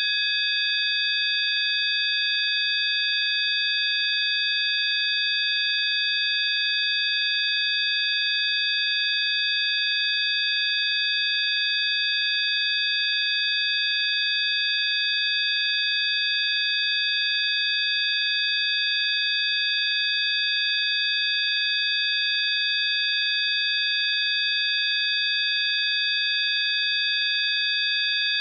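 Electronically generated 'healing frequency' tone track: several steady, high-pitched pure tones sounding together without change, over a faint hiss.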